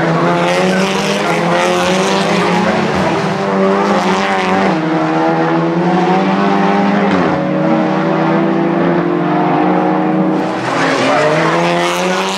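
Audi Sport TT Cup race cars' turbocharged four-cylinder engines running hard, the pitch rising and falling as the cars brake and accelerate through a hairpin. Near the end tyres skid as one car slides off into the barrier.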